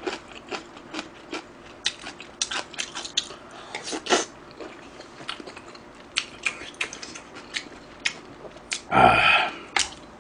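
Close-miked eating: a bite of Spam chewed with many short wet smacks and clicks of the mouth. About nine seconds in comes a single longer, louder mouth sound.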